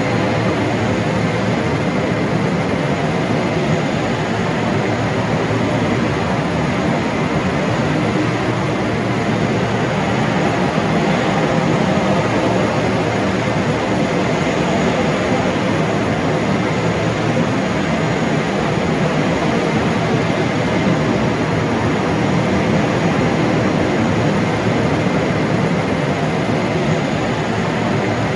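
Airport tarmac ambience: aircraft engines running steadily, a continuous even noise with a faint steady high whine.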